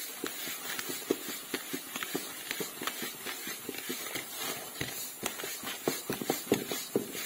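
Hand rubbing a crumbly flour, sugar and margarine topping mixture in a stainless steel bowl: fingers scraping through the crumbs and knocking against the metal in quick, irregular strokes.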